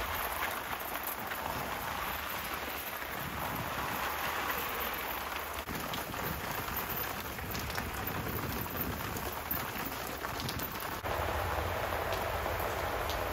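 Garden hose spray nozzle spraying water onto plastic seedling trays and potted plants: a steady hissing patter, a little louder from about eleven seconds in.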